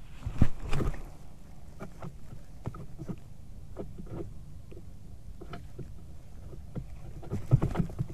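White-tailed eagle's wingbeats on the nest: a short run of heavy wing flaps about half a second in and again near the end, with scattered clicks and knocks of sticks and branches between them over a steady low rumble.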